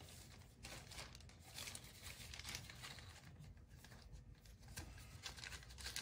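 Faint crinkling and rustling of a thin plastic zip bag being handled, with light scattered clicks.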